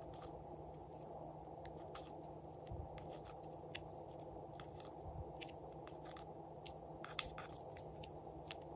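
Light, irregular clicks and taps of fingertips and nails on a small plastic box and on glitter cut-out pieces as they are picked out and set down on slime, about one a second, over a steady low background hum.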